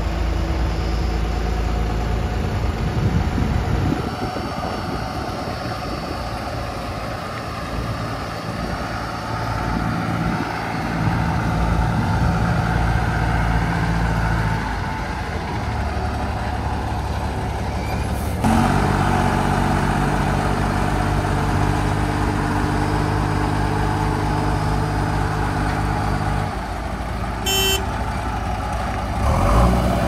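Heavy diesel engine of a Tata tipper truck running as the truck drives slowly over a dirt site, a steady low drone whose note changes abruptly about two-thirds of the way through. Near the end there is a brief sharp sound.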